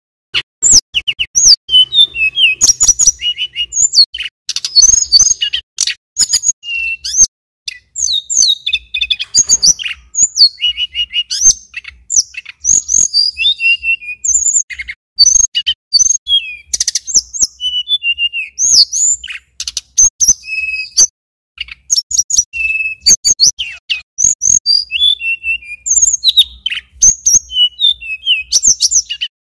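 Male tledekan gunung (sulingan gunung) singing a long, nearly unbroken run of rapid high chirps and short whistles, beginning about half a second in.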